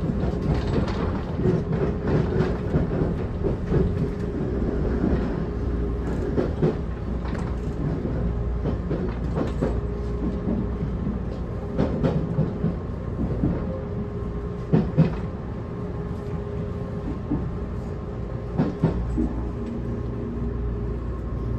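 Cabin of an Odakyu 50000 series VSE Romancecar at speed: a steady running rumble, with short paired clacks a few times as the articulated bogies pass over rail joints.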